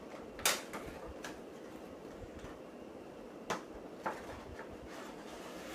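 A cardboard Funko Pop box and its plastic insert being handled and opened: a few sharp clacks and scrapes, the loudest about half a second in, over a steady background hum.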